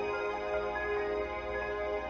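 Instrumental karaoke backing track playing its closing bars: soft, long-held chords.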